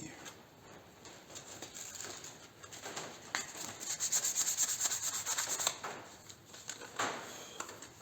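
Hand rubbing and scraping on a workpiece: a rasping rub that builds about three seconds in and stops a little before six seconds. Two sharp knocks fall around it.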